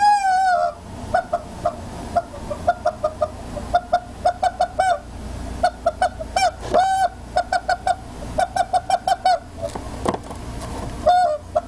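Squeeze-toy rubber chicken squeaking in quick runs of short squeaks, with a few longer drawn-out squawks: one at the start, one about seven seconds in and one near the end.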